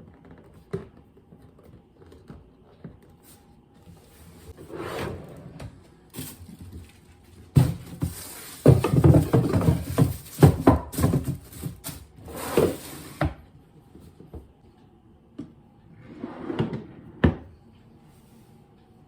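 Household handling noises: scattered clicks and knocks, with a busy stretch of knocking and sliding sounds in the middle and a few swishes.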